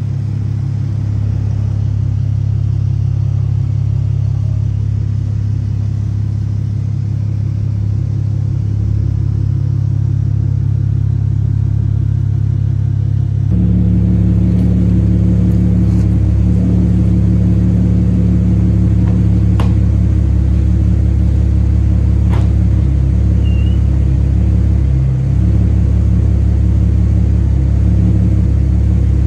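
A straight-piped Infiniti M37x's 3.7-litre V6, with catless downpipes and the muffler and resonators deleted, idling steadily. Its tone and level change abruptly about halfway through, and a few light clicks follow.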